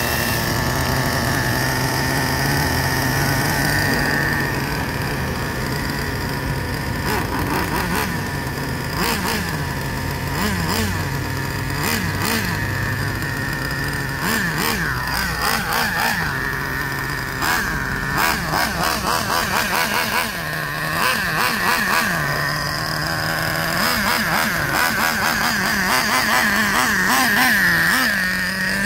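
Traxxas TRX 3.3 two-stroke nitro engine of a Revo 3.3 RC truck running during break-in. It idles high-pitched while the throttle is blipped again and again, then revs up near the end as the truck drives off.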